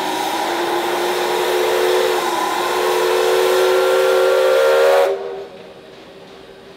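Steam whistle of the K-class steam locomotive K183 blowing one long blast of several tones at once over a loud rush of steam, cut off sharply about five seconds in.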